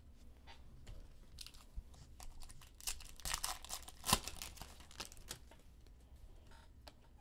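A foil trading-card pack being torn open and its wrapper crinkled, with a sharp snap about four seconds in. Light flicks and clicks of cards being handled come before and after the tearing.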